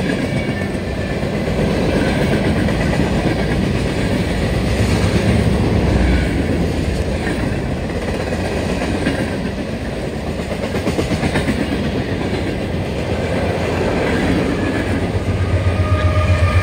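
CSX freight train rolling past, its wheels clacking over the rail joints as the cars go by. A deeper rumble swells near the end.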